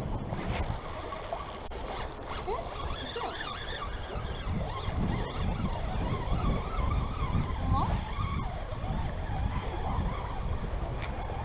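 Spinning reel being cranked fast, its gears giving a high-pitched whine that comes and goes in spells, over a low rumble of wind on the microphone.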